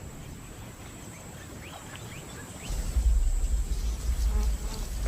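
Outdoor ambience: a steady high insect trill with a few short chirps, and a loud low rumble coming in a little past halfway.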